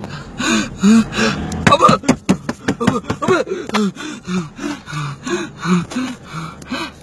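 Voices calling out in short, loud exclamations, with a few sharp clicks about two seconds in.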